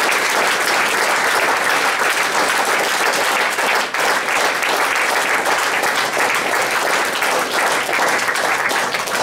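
Audience applauding: many hands clapping without a break, thinning slightly near the end.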